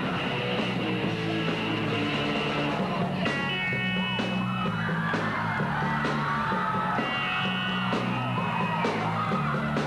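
Live amateur rock band playing a cover: distorted electric guitar, bass and drums, with a voice singing over them partway through.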